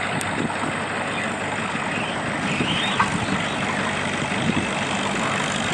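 An antique Farmall tractor's engine running steadily under heavy load as it drags a weight transfer sled.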